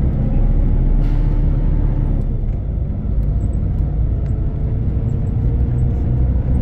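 Volvo B12R coach's rear-mounted six-cylinder diesel engine running steadily while the bus drives along, heard from inside the passenger cabin as a low drone. A brief hiss sounds about a second in.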